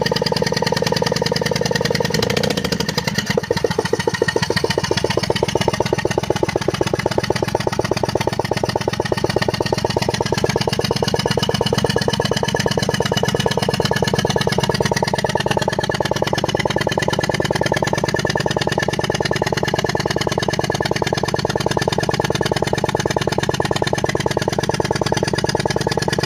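Maruti Suzuki Ertiga BS6's 1.5-litre four-cylinder petrol engine idling with a misfire. The note shifts about two to three seconds in, then runs steadily.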